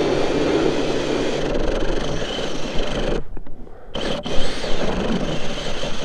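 Cordless drill turning a steel ice auger, grinding steadily as it bores a hole through thick lake ice. It breaks off briefly about three seconds in, then starts again.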